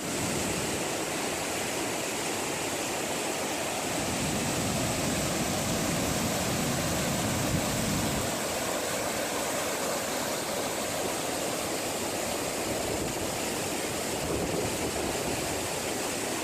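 Steady rushing of a mountain creek's water.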